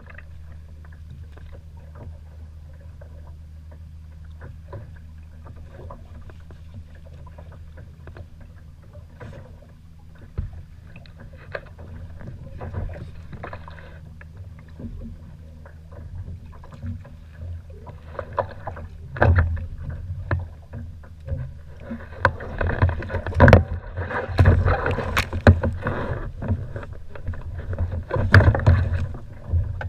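Water lapping and knocking against the plastic hull of a sit-on-top kayak over a steady low rumble, becoming louder and busier in the second half with irregular splashes and knocks as a smooth-hound is brought aboard and handled.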